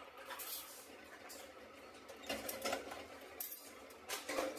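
Sheet-metal workshop clatter: steel brackets and press tooling clanking together in irregular bursts, loudest about two seconds in and again near the end.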